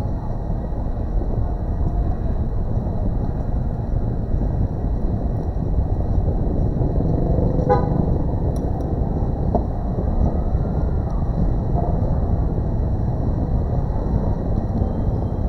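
A steady low rumble of background noise, with one short beep about eight seconds in.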